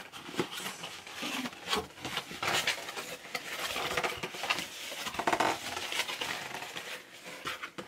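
Cardboard box being handled and folded open: irregular rustling and scraping of cardboard with short light knocks.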